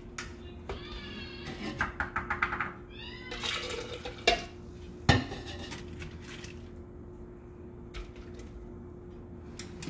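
Water poured from a plastic measuring jug into a blender jar, followed by two sharp knocks. Before it come a few short, wavering high-pitched calls, about a second in and again near three seconds, over a steady low hum.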